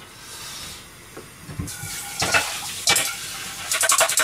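A scum skimmer clinking and scraping against the pot and a bowl as scum is skimmed off simmering oden broth. A steady hiss comes in about halfway, with a few knocks and then a quick run of light taps near the end.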